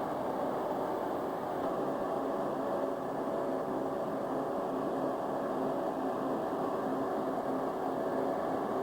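A steady mechanical drone: continuous running noise with several faint steady tones, even in level throughout.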